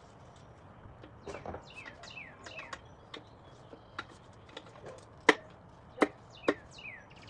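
A few sharp clinks and knocks of metal engine parts and tools being handled during a connecting-rod and bearing teardown, the loudest just past the middle. Birds chirp in short falling notes behind it.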